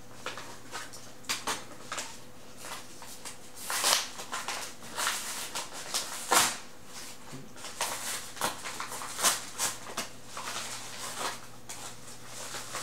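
White plastic mailing envelope being handled and pulled open, crinkling and rustling in irregular bursts.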